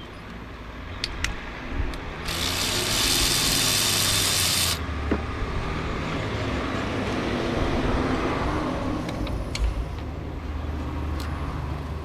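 A steady hiss lasting about two and a half seconds, starting about two seconds in and cutting off sharply, with scattered sharp clicks of handling and a low rumble under it.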